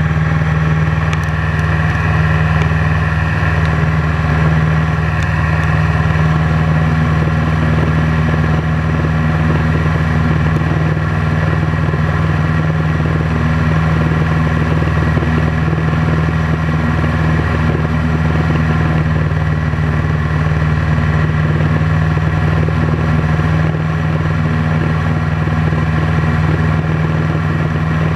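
Piper PA-18 Super Cub's piston engine and propeller running at a steady power in flight, a loud unchanging drone heard from inside the cockpit.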